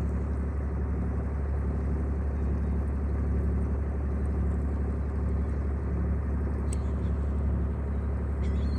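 Sailboat's engine running steadily while the boat motors along under way, a constant low drone.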